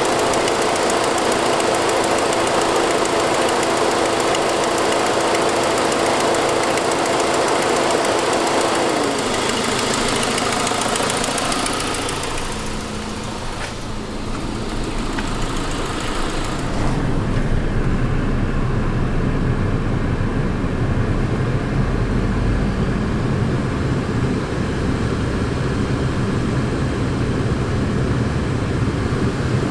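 The 2006 Saab 9-5's turbocharged four-cylinder engine running with the noise of an exhaust leak, caused by a broken forwardmost exhaust manifold stud. A steady whine drops in pitch about nine seconds in. From about halfway through, the bright hiss fades and a lower rumble is left.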